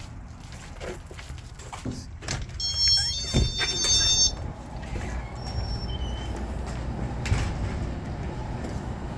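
A car's low, steady rumble with a few knocks, and a thin, high-pitched squeal of several tones about three seconds in that lasts under two seconds.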